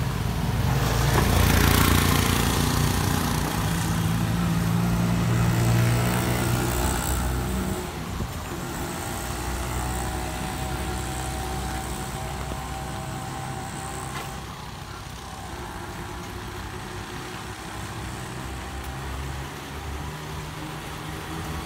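A small motor vehicle's engine passes close on the wet road, its tyres hissing on the wet tarmac, loudest about two seconds in. After about eight seconds it falls to a quieter, steady traffic hum.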